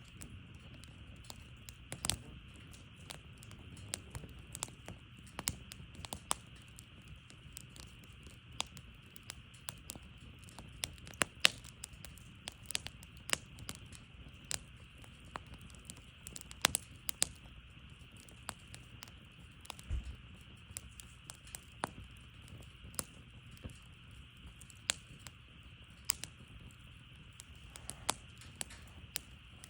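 Oak firewood burning, crackling with irregular sharp pops and snaps over a faint steady hiss.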